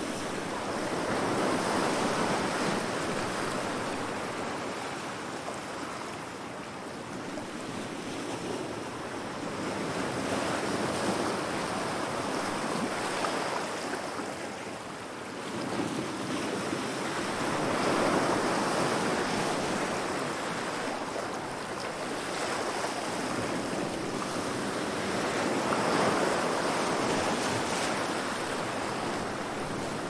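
Ocean surf: waves breaking and washing in as a continuous rush of water, swelling and fading about every eight seconds.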